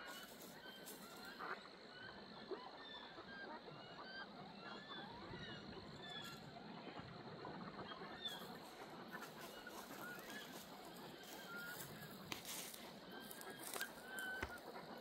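A flock of wood ducks calling overhead: many short, overlapping squealing calls that rise and fall in pitch, over a steady outdoor hiss, with a few sharp clicks near the end.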